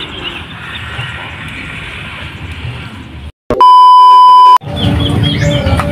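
A TV test-pattern tone: a loud, steady, high beep lasting about a second, just after a brief drop to silence partway through, used as a colour-bars edit transition. Steady outdoor background noise with small chirps runs before and after it.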